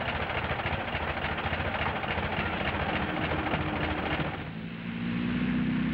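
Vintage biplane's piston engine and propeller running with a fast, even clatter. About four and a half seconds in it gives way to a steady low hum of held tones.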